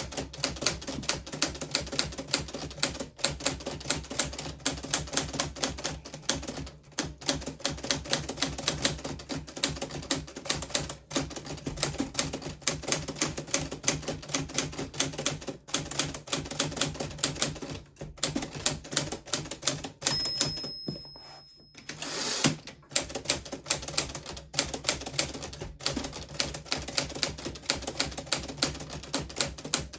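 1940s Smith Corona Silent manual typewriter being typed on steadily, a rapid run of key strikes. The typing pauses briefly about two-thirds of the way through, with a short high ring and a longer sweeping noise before the keystrokes pick up again.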